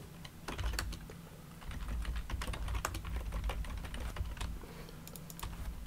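Computer keyboard typing: quick, irregular keystrokes with a brief lull about a second in, over a low steady hum.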